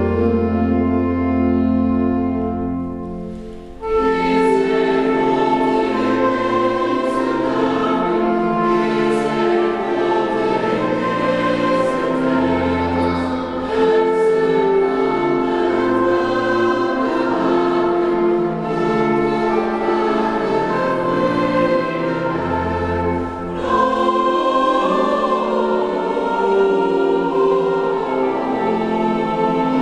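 A choir singing with instrumental accompaniment. A held chord dies away about three and a half seconds in, then a new passage begins and runs on.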